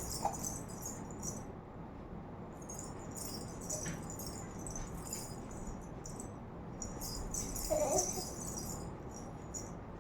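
A jingling rattle shaken in short bursts, stopping and starting several times, with a brief higher squeak just after the start and another about eight seconds in.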